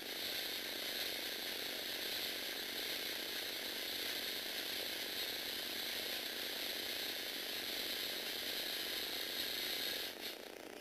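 Lego Mindstorms NXT earthquake shake table, its motor driving the plastic Lego gears, running steadily and then stopping abruptly about ten seconds in.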